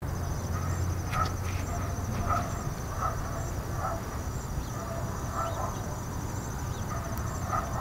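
Open-field ambience: insects trilling steadily at a high pitch, with a short animal call repeated about once a second over a low rumble.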